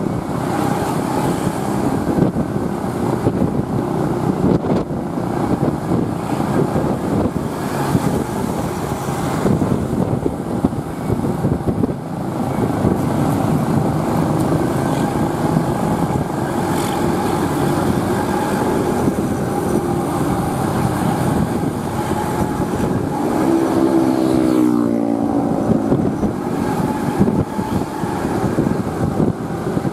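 Intercity buses' diesel engines and exhausts running on the road, a steady loud rumble. About 24 seconds in, a pitched tone drops in pitch as a vehicle goes past.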